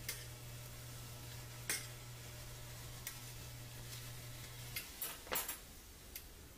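Metal tongs clicking and knocking against a stainless steel pan as fish pieces are turned, over a faint sizzle of fish simmering in a little water. A low steady hum stops about five seconds in, followed by a quick cluster of knocks.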